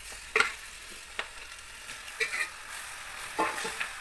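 Guinea fowl meat, onions and tomatoes sizzling in hot oil in a pot, with a metal spoon scraping and knocking against the pot a few times as it is stirred.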